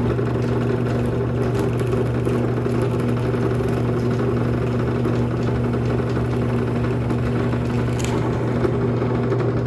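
Drill press motor running with a steady hum while the bit bores into a pine board.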